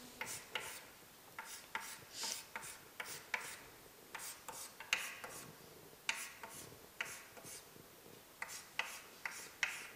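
Chalk scratching on a chalkboard in many short, irregular strokes as letters are crossed out with small X marks.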